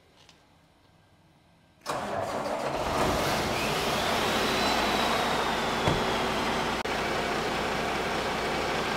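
Cummins X15 diesel semi-truck engine starting about two seconds in and settling into a loud idle, its exhaust blowing straight out of the turbo downpipe with no DOC, DPF or SCR attached. A thin high whine rises and then fades over the next few seconds.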